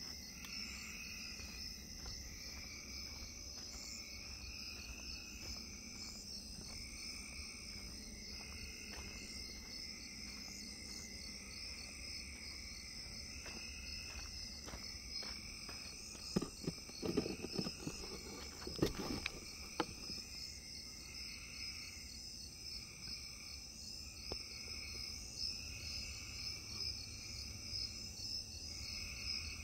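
Night insects chirring in a steady high pulsing trill, with a lower call repeating about every second and a half. A cluster of knocks and rustles comes a little past halfway.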